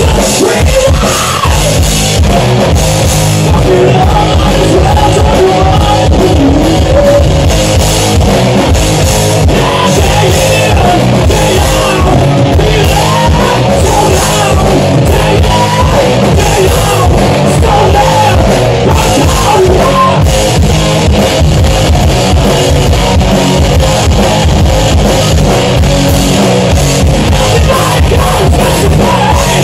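Rock band playing live and loud: electric guitars over a drum kit keeping a steady beat.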